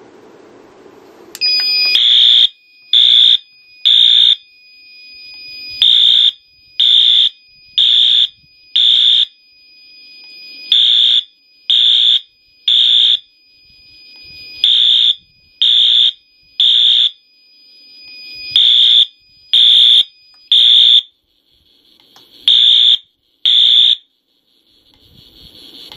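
Wheelock AS horn strobe sounding on a Silent Knight SK-2 panel with Wheelock synchronization switched on: loud, high-pitched horn blasts about a second apart, mostly in groups of three with a short pause between groups, in the temporal-three fire evacuation pattern. A faint steady high whine runs under the blasts until the last few, and the horn stops near the end.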